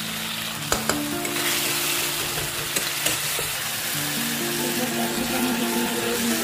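Spice masala of tomato, onion and red chilli powder sizzling in hot oil in a kadai while a metal spatula stirs it, as the gravy is being fried. A few sharp clicks of the spatula against the pan come about a second in and again around three seconds, over background music with held notes.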